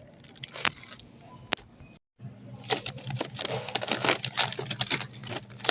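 Packaging crinkling and rustling as it is handled, with many small clicks and crackles, denser after a brief gap about two seconds in, over a steady low hum.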